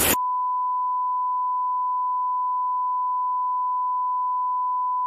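A steady, single-pitch beep tone replacing all other sound, as used to bleep out or redact audio; it cuts in a moment after the start.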